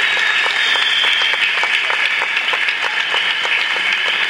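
Theatre audience applauding: many hands clapping in a steady, sustained round.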